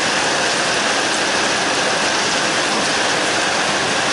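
Heavy rain falling steadily on the yard: a dense, even hiss with no let-up.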